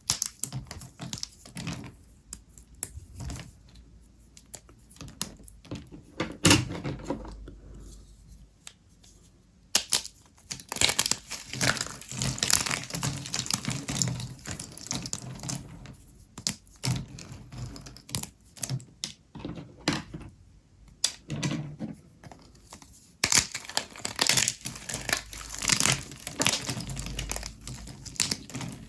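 Brittle microwave-puffed soap with starch being broken and crushed: dry crackling and snapping, with one loud snap about six seconds in and two long runs of dense crackling.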